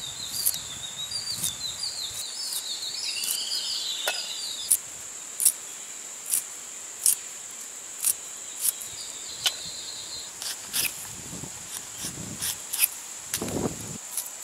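Knife slicing a red bell pepper held in the hand, a crisp cut about every second from about a third of the way in. A steady high insect drone runs beneath, and a bird twitters in the first few seconds and again briefly later.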